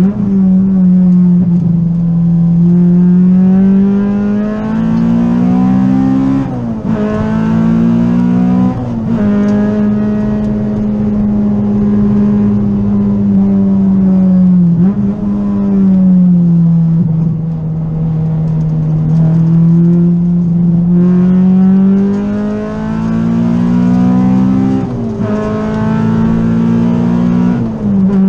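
Honda B18C Type R 1.8-litre VTEC four-cylinder engine of a track-prepared EG Civic, heard from the cabin at high revs under load. Its pitch climbs steadily and then drops suddenly several times as the driver changes gear.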